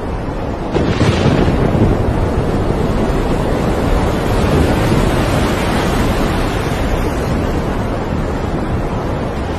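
Storm wind rushing over the microphone and heavy seas breaking around a tanker's bow. The noise swells about a second in and stays loud.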